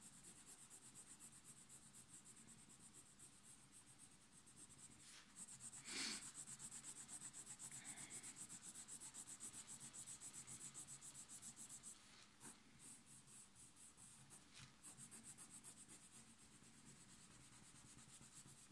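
Faint, quick back-and-forth scratching of a coloured pencil shading on sketchbook paper, with a short soft knock about six seconds in.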